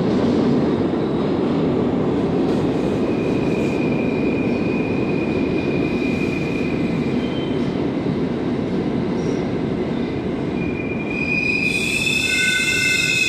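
New York City subway train running through an underground station, giving a steady heavy rumble of wheels on rail. Thin wheel squeals come in from about three seconds in and grow into several high squealing tones at once near the end.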